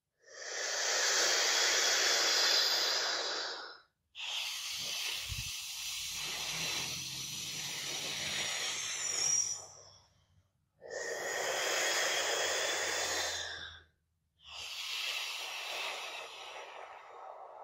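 Deep breathing exercise for a brass player: two long, hissing breaths drawn in through a closed fist held to the mouth, the fist giving resistance to the inhale, each followed by a long breath out. The breaths in are the loudest parts.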